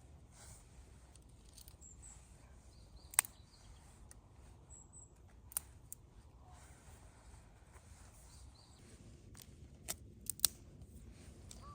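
Scattered sharp clicks or snaps over a quiet outdoor background: one a few seconds in, another midway, and a quick group of three near the end, with faint high bird chirps in the distance.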